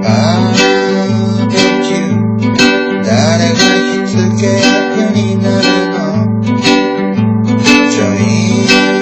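Upbeat background music: strummed acoustic strings over a bass line that repeats about once a second.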